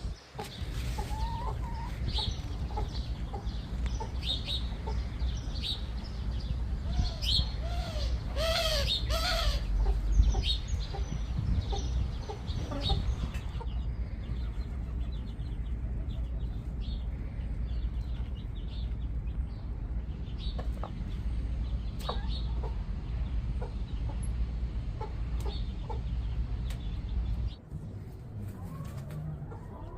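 Backyard chickens clucking and calling in short repeated calls, over a steady low rumble. A louder, denser run of calls comes about eight to ten seconds in.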